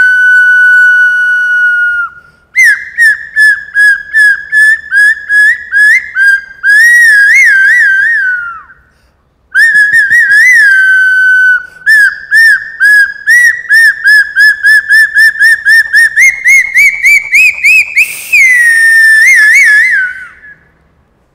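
A small handheld whistle blown in long held notes broken by trills of quick chirps, with two short pauses for breath, about two and about nine seconds in. Near the end the trill climbs in pitch into a final held note that fades out shortly before the end.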